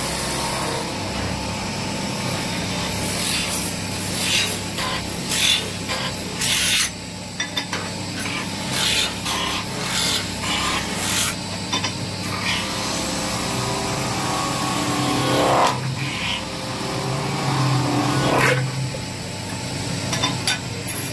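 Lathe running with a long cutting bar shaving a spinning copper goblet blank: repeated rasping cuts over a steady motor hum, with a couple of short rising squeals in the second half.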